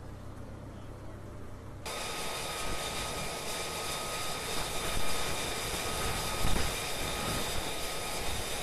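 A low steady hum, then, about two seconds in, an F-35B's jet engine running close by: a rushing roar with a steady high whine over it. It gets briefly louder twice, about five and six and a half seconds in.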